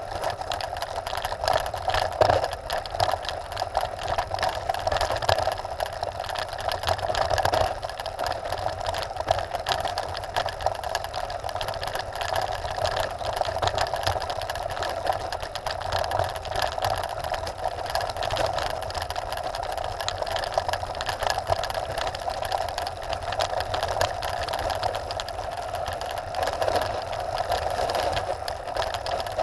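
Trek Top Fuel 9.8 mountain bike rolling fast downhill over a loose gravel road: tyres crunching over stones and the bike rattling continuously, with a steady buzz underneath and a few harder knocks around 2 and 7 seconds in.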